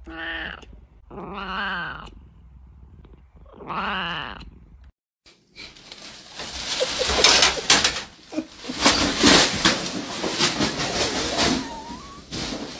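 A cat meowing three times, each meow about a second long with a bending pitch. Then, after a short break, plastic bag rustling and crackling as a cat climbs into it.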